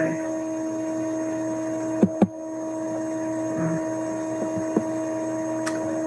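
Steady electrical hum with a few fixed tones, carried on the webinar's audio feed. Two sharp clicks about a quarter of a second apart come about two seconds in.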